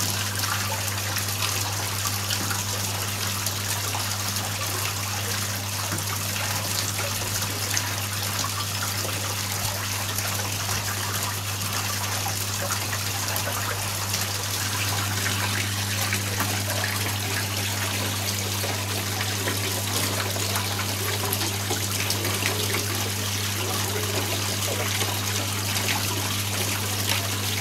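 Steady trickle of running water with a low, steady hum beneath it.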